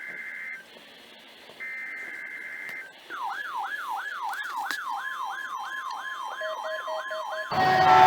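Two bursts of an Emergency Alert System SAME header: shrill digital data screeches, each about a second long with a second's pause between them. Then an electronic warble siren starts, sweeping rapidly upward about two and a half times a second, with a steady tone joining under it. Near the end a much louder, harsh blaring sound with several pitches cuts in.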